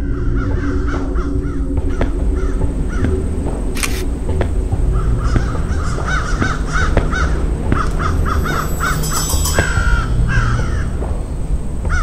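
Crows cawing over and over, sparse at first and then many calls in quick succession from about halfway, over a low steady rumble.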